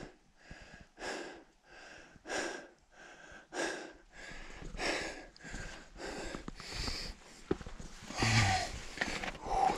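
A person breathing hard from the exertion of climbing a boulder field: heavy breaths close to the microphone, about one a second, getting louder near the end.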